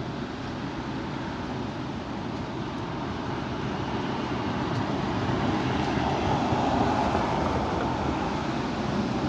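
Strong wind blowing and rumbling on the microphone, swelling into a louder gust about six to seven seconds in.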